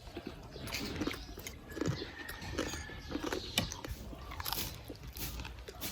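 Close-up crunching and chewing of crispy deep-fried pork belly with crackling skin (lechon kawali): irregular crackly bites and chews with no steady rhythm.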